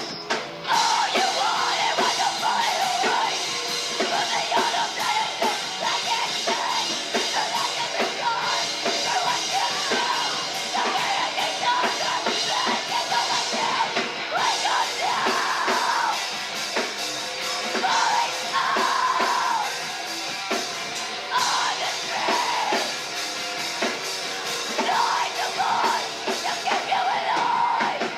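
Live rock band playing loud, with a drum kit keeping a steady beat and shouted vocals.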